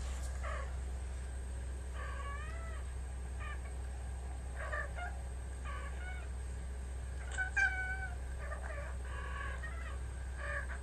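A cat meowing: a series of short meows, several rising and falling in pitch, the loudest pair about two-thirds of the way through, over a steady low hum.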